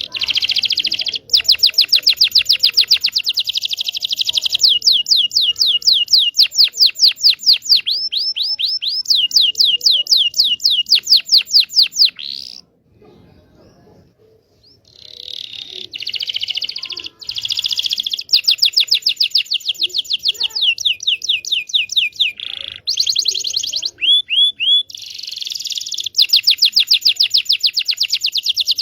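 Canary singing: long song bouts made of runs of rapidly repeated notes, each run at its own speed. There are two bouts, with a pause of a couple of seconds about halfway. The song is played as a lure song to get other canaries singing.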